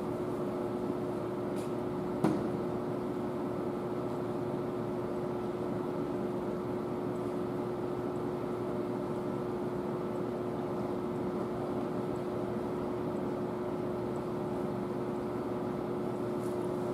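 Steady machine hum of a workshop, with a constant tone held throughout, and a single sharp click about two seconds in.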